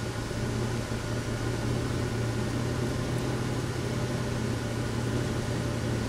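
2003 Pontiac Grand Am GT's 3.4-litre V6 idling steadily, heard from inside the cabin as a low, even hum with a light hiss. The engine is running with a faulty heated oxygen sensor (bad heater circuit) that makes it run progressively worse.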